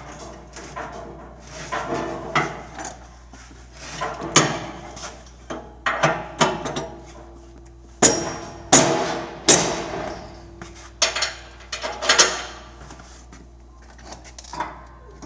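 Metal clanking and knocking of steel tractor three-point hitch parts being worked by hand: pins and lift arms striking the chipper's hitch. The loudest, sharpest ringing clanks come in a cluster in the second half.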